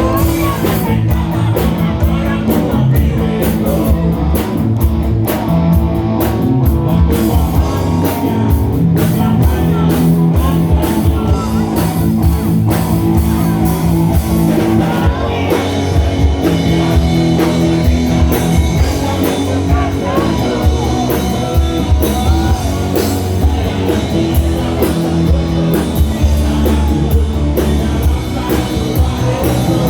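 Live rock band playing, with electric guitar, bass and a drum kit keeping a steady beat.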